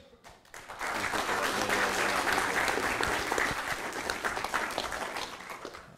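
Audience applauding, a dense patter of many hands clapping that builds up about half a second in and tapers off near the end.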